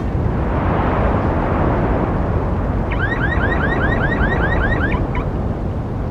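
Busy road traffic rumbling, with a vehicle passing about a second in. From about three seconds in, a rapid run of short rising electronic chirps, about five a second, lasts some two seconds, like a car alarm or siren yelp.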